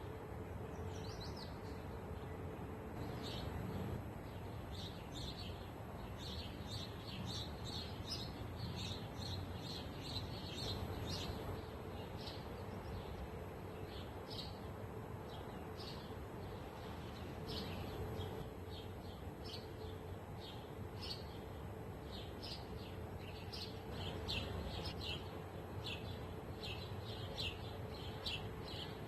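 Small birds chirping, a steady stream of short, high chirps coming several times a second, over a steady low rush of wind.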